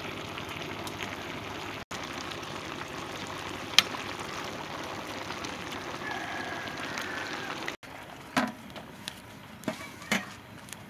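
A pot of jackfruit and pork leg stew simmering, a steady bubbling hiss, with a sharp metal clink of a ladle about four seconds in. After a sudden cut it goes quieter, with a few light clinks near the end.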